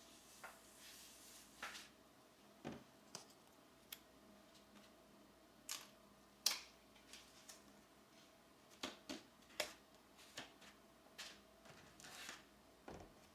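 Coloured pencils and paper being handled: scattered light taps and clicks, with a couple of brief soft rustles, over a faint steady hum.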